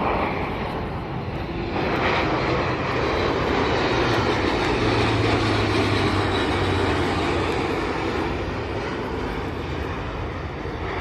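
Airbus A400M Atlas C1 flying past, its four TP400 turboprop engines and propellers giving a dense rumble with a low propeller hum. The sound swells about two seconds in, peaks mid-way with the hum dropping in pitch, then eases off.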